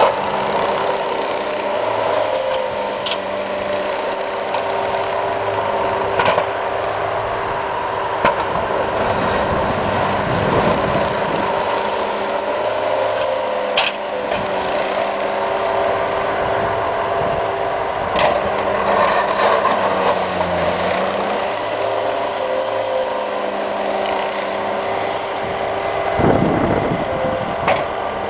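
Diesel engine of a Cat 247B compact track loader running steadily while it pushes snow, its pitch dipping briefly a little after the middle, with a few sharp knocks and clanks scattered through.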